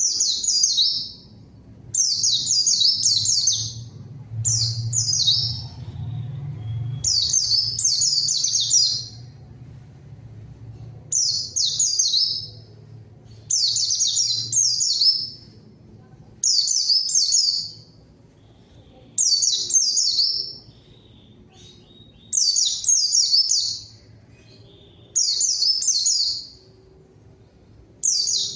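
A white-eye (pleci) singing in vigorous, high-pitched warbling phrases, each about a second or two long, repeated every two to three seconds. It is the bird's lively rival-calling song.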